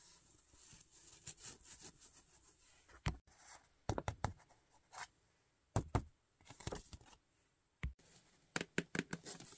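Fingernails scratching and tapping on a soft plush toy as it is handled and squeezed: irregular short scratches and knocks with pauses between, and a run of quick taps near the end.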